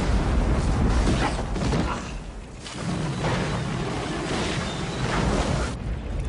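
Film sound effects of a starship crash-landing: continuous heavy rumbling and crashing with deep booms, easing briefly about two and a half seconds in.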